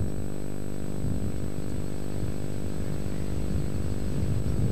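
A steady low mechanical drone, even and unbroken, with a buzzing quality.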